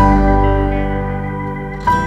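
Background music: a held chord that slowly fades, with a new note struck near the end.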